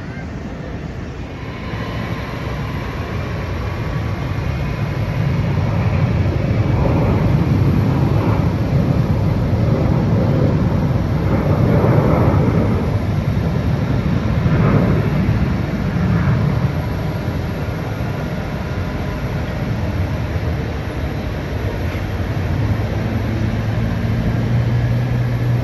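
Low rumble of a large passing vehicle, building over the first several seconds, at its loudest around the middle, then easing slightly.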